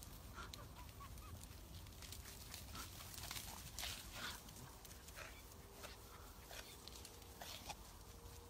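Flock of sheep running over grass: a faint, irregular clatter of hooves on turf, busiest in the middle, over a low rumble, with a few faint bird chirps in the first second or so.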